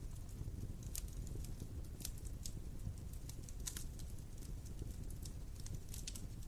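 Wood fire crackling: irregular sharp snaps and pops over a steady low rumble.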